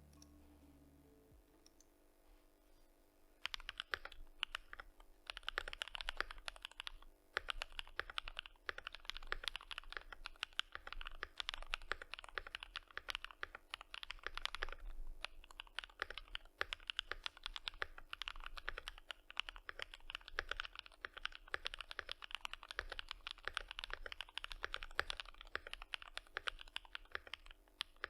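Fast typing on a FinalKey V65 R2 aluminium-case mechanical keyboard, fitted with stock Gateron Modern Gray switches, ABS doubleshot keycaps, full foam and lubed stabilisers. The quick run of key clicks starts about three and a half seconds in and keeps going, with short pauses about seven and fifteen seconds in.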